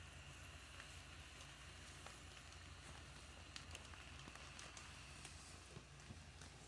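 Faint, steady low hum of a Gemmy Happy Reaper airblown inflatable's built-in blower fan, with scattered light crackling of the nylon fabric as it fills and stands up.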